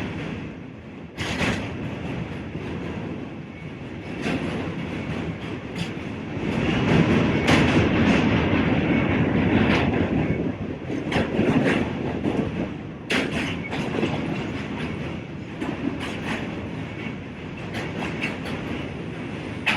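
New York City Q subway train running, a steady rumble with irregular clicks and clacks of the wheels over the rail joints. It grows louder for a few seconds in the middle, then eases back.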